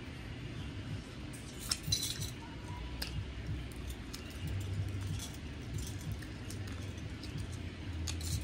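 Boiled shrimp being peeled by hand: scattered small clicks and crackles of shell, with metal bangles on the wrists clinking, densest about two seconds in, over a low steady rumble.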